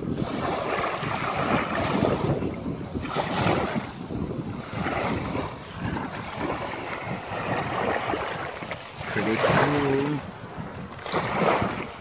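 Small waves washing over shelly sand at the water's edge, with wind buffeting the microphone in surges. About nine seconds in, a brief low hum with a steady pitch comes in and stops after about a second.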